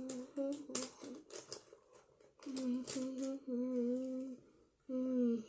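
A young girl humming a tune in short phrases of held notes, breaking off for a moment about two seconds in.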